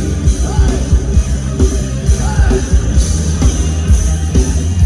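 Rock band playing loud through a large sound system, with heavy bass and a pounding drum beat between sung lines.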